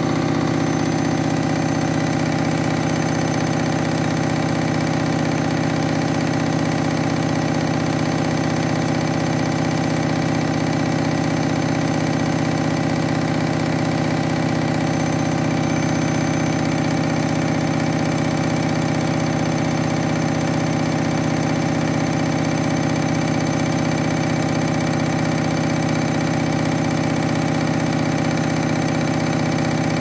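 Front-loading washing machine running with its drum turning a load of wet towels: a steady motor hum that does not change.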